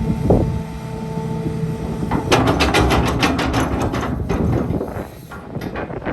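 Hitachi ZX250LC-5N excavator's Isuzu 5.2 L diesel engine running, with a rapid run of metallic clanks about two seconds in that lasts a couple of seconds.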